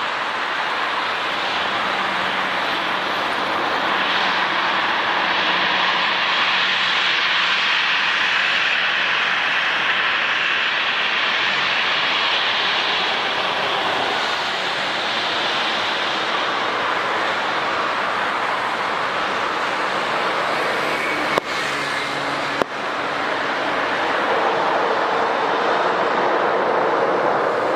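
Jet airliner engines running, heard as a steady rushing noise that swells a little and eases off. Two short sharp clicks come about three quarters of the way through.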